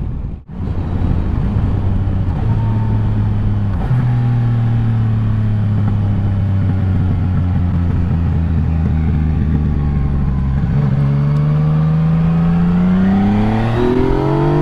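Yamaha Tracer 900 GT's three-cylinder engine running through its new Roads Italia Thunder Carbon exhaust while riding: steady revs with small pitch shifts around two and four seconds in, then from about eleven seconds the revs climb steadily as the bike accelerates.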